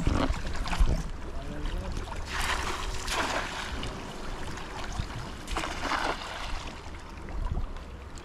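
Seawater splashing and sloshing around people wading waist-deep while handling cast nets, with two louder splashes, about two and a half and six seconds in, over a steady low rumble.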